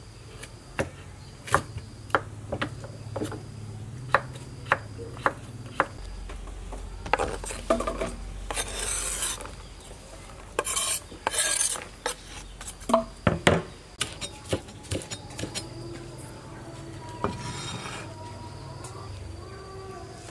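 Kitchen knife chopping carrot on a wooden cutting board, sharp knocks about two a second. Then the slices are scraped off the board into a plastic basket with sliding, rasping noise, followed by a few more knocks.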